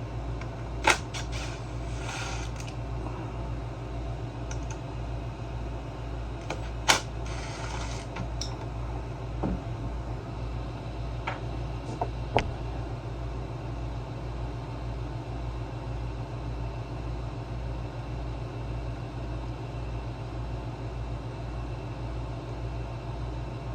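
A few sharp clicks and clinks of tools and parts being handled during work on a generator, bunched in the first half, over a steady low hum.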